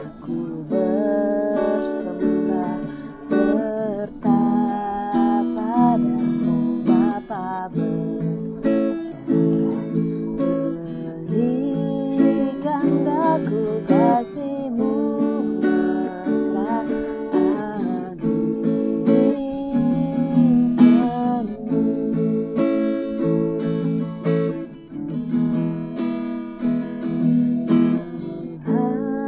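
A hymn sung in Indonesian, one voice over a strummed acoustic guitar.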